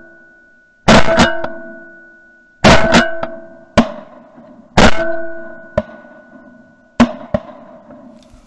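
Shotgun shots fired at flying ducks, recorded from a barrel-mounted camera: four loud shots about two seconds apart, each followed by a metallic ring that dies away, with a few fainter, sharper cracks between them.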